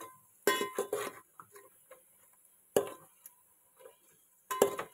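Metal spoon stirring crab pieces in a metal pot, knocking and scraping against the pot with a few sharp clanks that ring briefly: a cluster about half a second in, one near three seconds, and another near the end.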